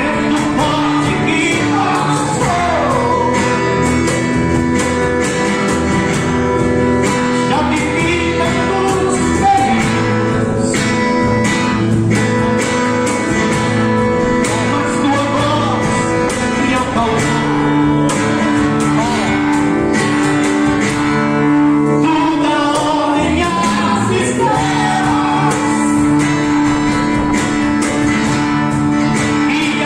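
Live worship band performing a song: singing over guitar and accompanying instruments, with the echo of a large hall.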